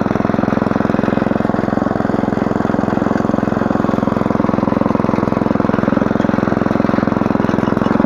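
Small petrol engine of a walk-behind mini tiller (rotary hoe) running steadily under load as its rotating tines cultivate the soil between sugar beet rows. It makes a loud, even, fast putter.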